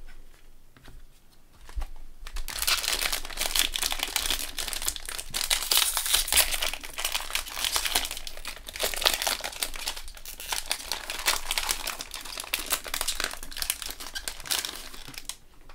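Trading-card pack wrappers being torn open and crumpled by hand. It is a dense crinkling and tearing that starts about two seconds in and stops just before the end.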